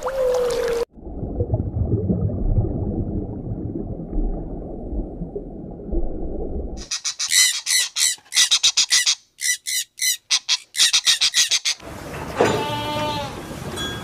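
A whale call ending in a falling tone, then several seconds of low muffled noise. A bird calls in rapid runs of high repeated notes, and a goat bleats near the end.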